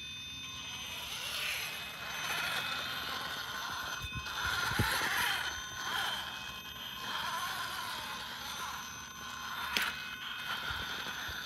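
Castle brushless motor and speed controller of an RC rock crawler (Axial Ryft) whining as it crawls slowly over rock. The high, steady whine swells and fades with the throttle, and a couple of light clicks sound about halfway through and near the end.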